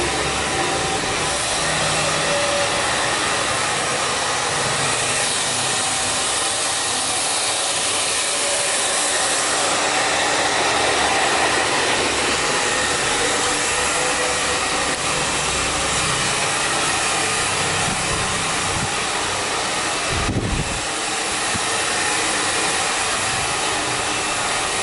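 Handheld hair dryer blowing steadily while hair is combed and dried.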